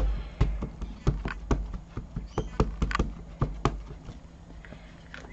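Small hard taps and clicks of an ink pad being dabbed onto a rubber stamp, about a dozen irregular taps over the first four seconds, then fewer and fainter.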